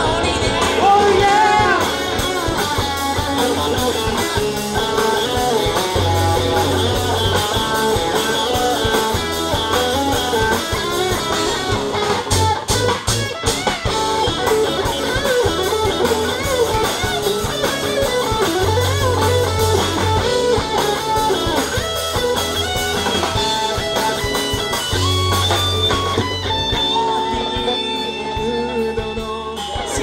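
Live rock band playing with electric guitar, bass guitar and drum kit, the guitar to the fore. The low end thins out near the end.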